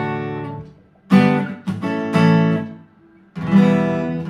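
Fender CD-60 V3 dreadnought acoustic guitar, unplugged, strummed in chords that are left to ring and die away. The sound fades almost to nothing about a second in and again briefly near three seconds, each time followed by a fresh strum.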